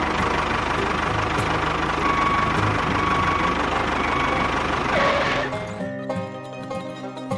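Tractor engine sound running steadily with a fast, even knock for about five and a half seconds, then cutting off. Plucked-string background music follows.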